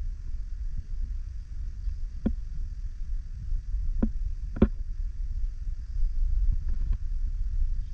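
Wind buffeting the camera microphone, a steady low rumble, with three brief ticks or scuffs about two, four and four and a half seconds in.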